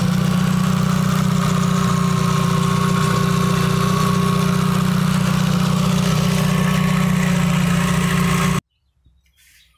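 Yamaha F20 four-stroke outboard motor running at a steady idle with its top cowling off. The sound cuts off suddenly near the end.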